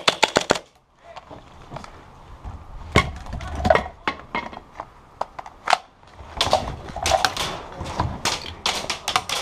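KWA KMP9R gas-blowback airsoft SMG firing a quick string of sharp clicks that cuts off within the first half second as the magazine runs out of gas. Then scattered knocks and clicks of the gun and magazine being handled and swapped, growing busier in the last few seconds.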